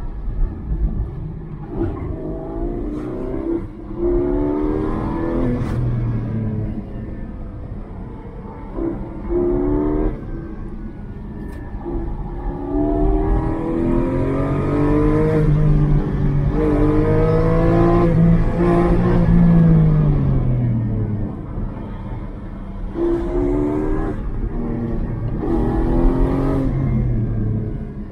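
Porsche Cayman GT4's naturally aspirated flat-six engine, heard from inside the cabin, accelerating hard in repeated pulls: its pitch climbs through each pull and drops back between them, the longest and loudest pull about midway. Road and tyre rumble runs underneath.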